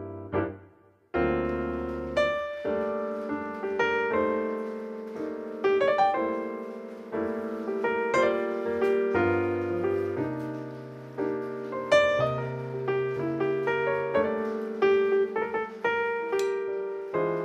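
Background piano music, a melody of struck notes, with a short break about a second in.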